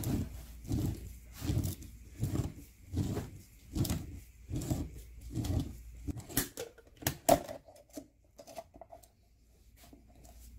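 Steel oil filter can being turned by hand in a roller-wheel oil filter cutter, the cutting wheel scraping through the metal in even strokes about every three quarters of a second. A few sharp metal clicks follow about six to seven seconds in as the can comes apart.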